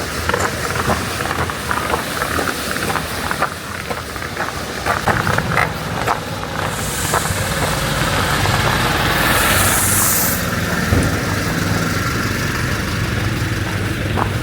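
Footsteps in snow on foot with chain spikes, with a motor vehicle's engine running steadily from about a third of the way in. Two short hisses come near the middle.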